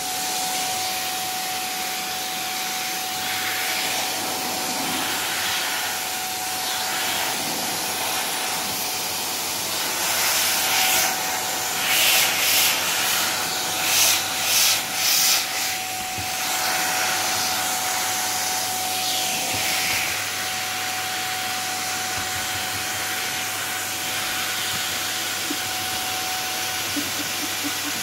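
Vacuum cleaner running steadily with a high motor whine. Its wand nozzle rubs and sucks against the sofa cushions, giving louder scratchy surges of hiss about halfway through.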